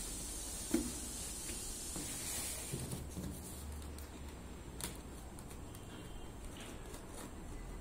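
A taped cardboard parcel being handled and cut open with a razor blade: faint scraping and rustling of the tape and card, with a few light taps, the sharpest about a second in.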